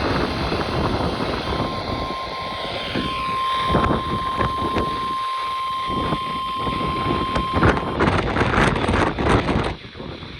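Noisy weather-radio static with a single steady alert tone, the NOAA Weather Radio 1050 Hz warning alarm, held for about six seconds and cutting off suddenly. Bursts of crackling static follow near the end.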